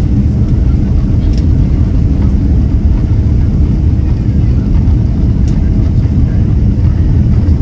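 Cabin noise of a Boeing 777-200 in motion, heard from a window seat: a loud, steady low roar of engines and airflow, with a faint steady hum above it.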